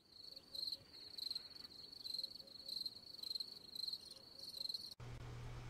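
Crickets chirping, a high trill pulsing about twice a second that cuts off suddenly near the end: the stock 'crickets' sound effect standing for silence, nothing to report.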